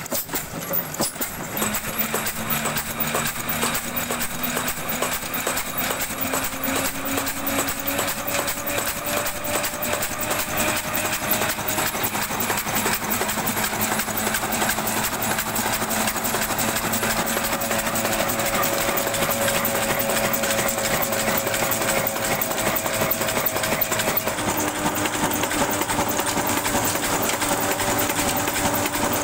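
Old Ruston Hornsby horizontal diesel engine running under load, powering a chakki flour mill, with a fast, even mechanical clatter. Its hum rises in pitch over the first ten seconds or so as the engine picks up speed, then holds steady.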